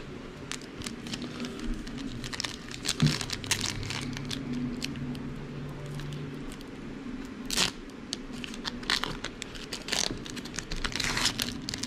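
Trading card pack handling: the plastic wrapper crinkles and tears, with many quick, sharp crackles and clicks as the cards are pulled and shuffled.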